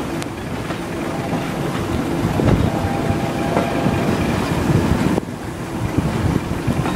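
Passenger train coach running slowly on the track, heard from an open window: a steady rumble of wheels on rail with wind buffeting the microphone.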